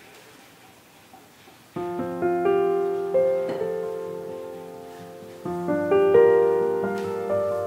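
Background music: a piano comes in about two seconds in, playing slow chords that ring on, with a fresh chord about five and a half seconds in.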